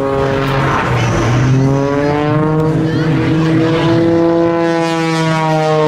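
Propeller engine of an aerobatic display plane, its pitch rising about two seconds in and then slowly falling as the plane manoeuvres.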